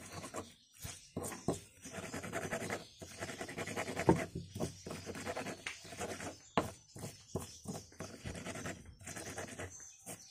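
Stone pestle grinding chillies and salt in a stone mortar: repeated gritty scraping strokes of stone on stone through wet paste, with a sharp knock about four seconds in.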